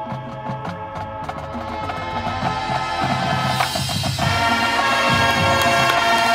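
High school marching band playing on the field: brass and woodwinds swell in a steady crescendo over low drum hits, the full brass sound arriving strongly about halfway through.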